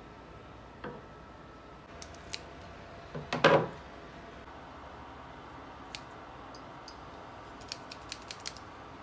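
A dull knock about three and a half seconds in as a batter-filled piping bag is set down into a plastic measuring jug on a wooden table. Near the end come several light metallic clicks of kitchen shears being handled.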